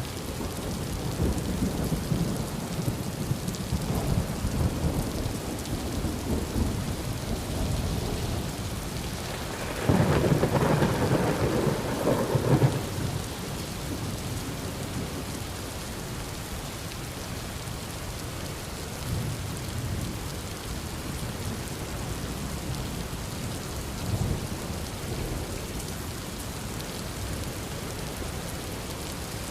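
Heavy rain falling steadily through a thunderstorm. Low rolling thunder rumbles over the first several seconds, a loud clap of thunder comes about ten seconds in and lasts a couple of seconds, and fainter rumbles follow twice later on.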